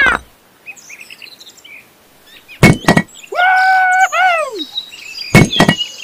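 Two sharp knocks, then a squeaky, high-pitched voice-like cry that holds for about a second and then slides down, followed by two more sharp knocks.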